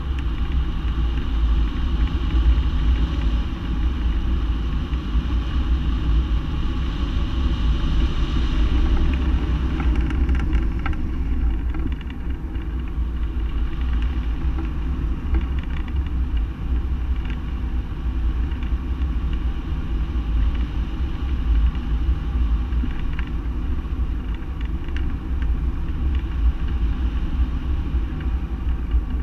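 Wind rushing over a camera mounted on a hang glider's wing in flight: a loud, steady low rumble of buffeting airflow.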